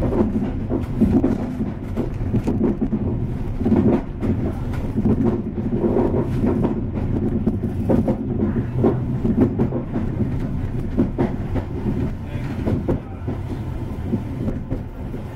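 Passenger train running along the line, heard from inside the carriage: a steady low rumble of wheels on rails, broken by frequent short knocks and clatters from the track.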